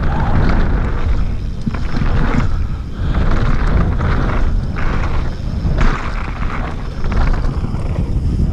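Wind buffeting a helmet-mounted camera microphone as a mountain bike runs fast down a dirt trail: a loud, steady rush with a heavy low rumble that surges now and then.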